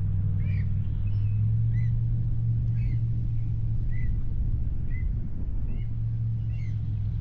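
Electric trolling motor running with a steady low hum, easing off briefly about two thirds of the way through, while a bird gives short high chirps about once a second.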